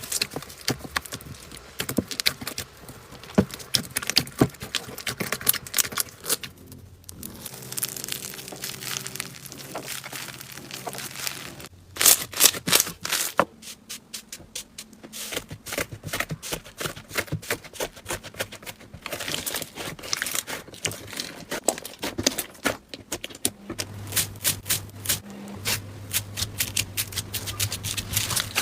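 Slime being squeezed and pressed by hand, giving dense, irregular crackling clicks and pops, loudest a little before the middle.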